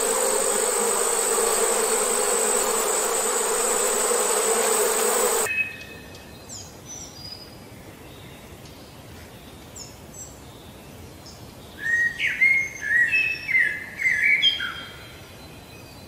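A bumblebee buzzing steadily, cutting off suddenly about five and a half seconds in. Birds then chirp: a few faint high chirps, then a louder run of short chirps a few seconds before the end.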